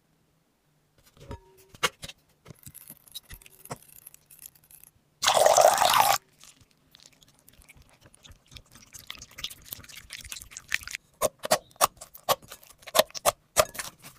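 Taps and clicks on a smartphone touch screen and its keyboard, closer together near the end, with one loud burst of noise lasting about a second about five seconds in.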